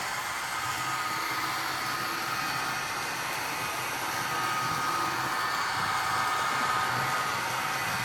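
Bachmann DDA40X model locomotive's onboard sound decoder playing a steady diesel engine sound through its small speaker, with a faint whine over a hissy hum, as the model runs around tight curves.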